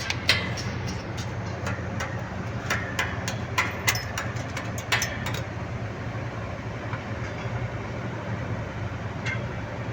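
Stick welding: a steady low machine hum with irregular sharp crackles and pops through the first five seconds or so, settling to a steadier hiss.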